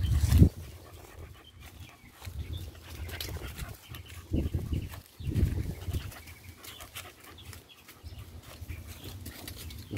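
A puppy panting hard during play, tired out. A few dull low bumps sound through it, the loudest just after the start.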